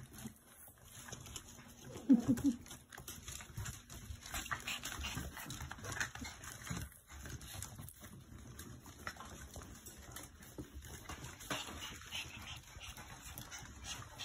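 Schnauzer puppies and their mothers at play: one short dog whimper about two seconds in, then light scuffling with many small clicks.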